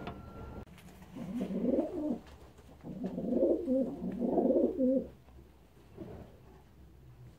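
Racing pigeons cooing: two bouts of low, warbling coos, the first about a second in and the second longer, starting about three seconds in, with a fainter coo near the end. A sharp click at the very start.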